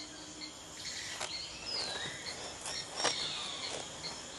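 Night rainforest ambience: an insect chirping steadily, about two or three short chirps a second, with a few rising and falling whistled calls and some soft clicks in the middle.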